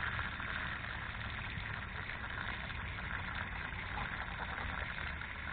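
Water running steadily from an outdoor spigot, the stream splashing onto grass and wood mulch, with a low steady rumble underneath.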